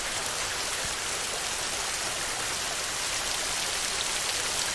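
Steady heavy rain drumming on a metal roof, a dense even patter of drops.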